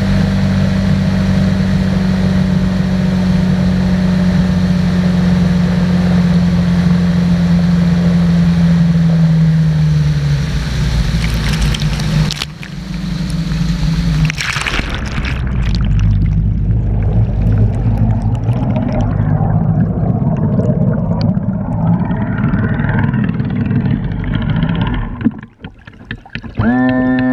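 Evinrude Ocean Pro 115 two-stroke outboard running at speed over rushing spray, its steady drone dropping in pitch about ten seconds in as the boat slows. From about a third of the way through the sound turns muffled and gurgling, heard from under the water beside the turning propeller.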